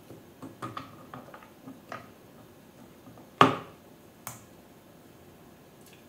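Small clicks and taps of metal parts being handled as a Wanderer ETA aluminium tilt adjuster is fitted onto a ToupTek off-axis guider, with one sharp, louder knock about halfway through and a lighter click just after.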